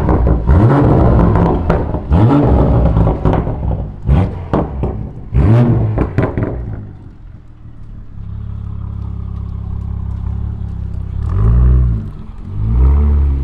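Straight-piped BMW 840i's turbocharged 3.0-litre inline-six revved in a string of short blips with several sharp pops, then settling to a steady low idle for a few seconds before two more revs near the end. The exhaust has no mufflers, which makes it very loud.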